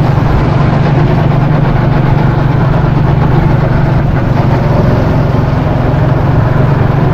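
Go-kart engine running steadily at speed, heard loud from on board the kart, with a constant low drone.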